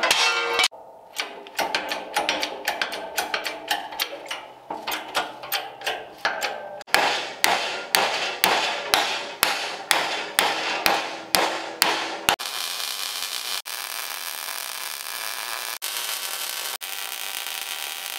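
Hand hammer striking a steel plate clamped to a bench, bending it to shape in a long run of blows; the heaviest come about two a second in the second half. About twelve seconds in the hammering stops and an electric welding arc hisses steadily, breaking off briefly a few times.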